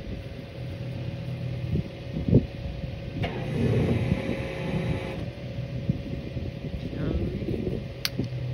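An engine idling steadily nearby, with a sharp click near the end.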